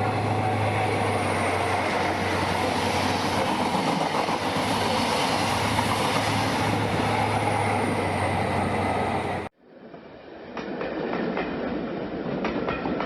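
A train running on track, with clickety-clack from the wheels. A steady running noise with a low hum cuts off abruptly about nine and a half seconds in, and a different recording of a train follows, with separate clicks.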